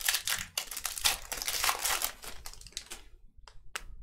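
Foil wrapper of a Panini Select football card pack being torn open and crinkled by hand. It makes a dense crackling for about three seconds, then two or three short crackles near the end.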